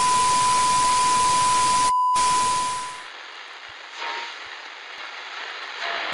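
Television static sound effect: a loud, steady hiss with a steady test-tone beep, both cut out briefly about two seconds in. About three seconds in they fade away, leaving a softer hiss that swells up twice.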